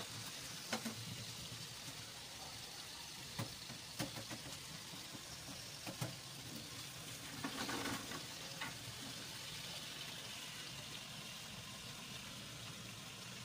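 Homemade garlic and hamonado longganisa sausages sizzling in oil in a frying pan, a steady hiss with a few sharp ticks scattered through it and a louder burst of sizzling about eight seconds in.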